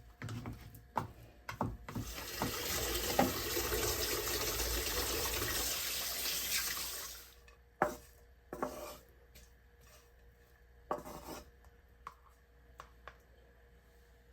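Tap water running into a sink for about five seconds, with knocks and clinks of dishes before and after. Two brief runs of water follow later.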